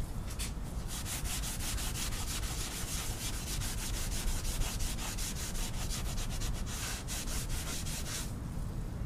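Greasy cast-iron vise being scrubbed with acetone: quick, even back-and-forth rubbing strokes, about five a second, that stop about eight seconds in.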